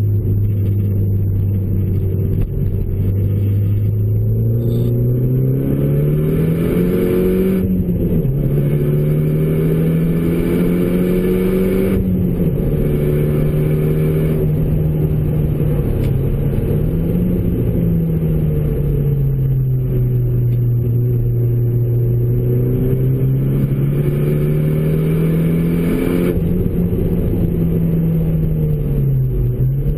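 Renault Mégane RS's turbocharged four-cylinder engine, through a K-Tec Racing full exhaust, heard from inside the cabin while driving. The revs climb under acceleration and drop back sharply at upshifts, about three times, then ease off and fall near the end.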